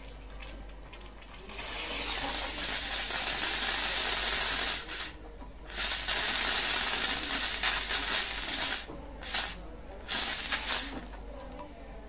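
Lelit PL92T steam wand hissing as the steam valve is opened and shut: a long blast of steam starting about a second and a half in, then more bursts of varying length, some short. The steam boiler is heating and making steam again after its safety thermostat was reset.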